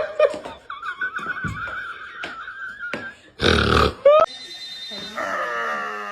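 An animal calling: a long wavering high-pitched call, then a loud harsh burst, a short rising call and a falling call near the end.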